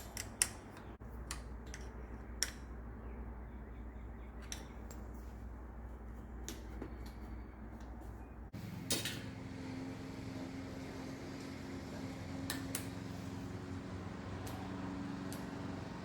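Scattered light metal clicks and clinks, parts and tools being handled during work on a bicycle, over a steady low hum. The background hum changes abruptly about eight and a half seconds in.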